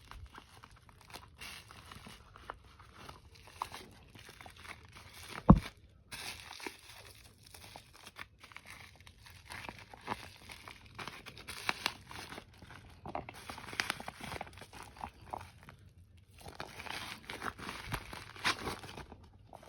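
Plastic parcel packaging crinkling and tearing as it is handled and opened, in irregular bouts of rustling. One sharp knock about five and a half seconds in.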